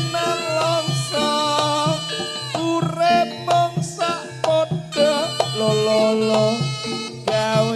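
Javanese jaranan gamelan music: drum strokes on a steady beat under a bending, held melody line and a low drone.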